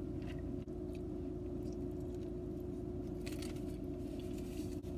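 Steady low hum of a car running, heard inside the cabin, with a few faint sips and swallows from a drink taken through a straw.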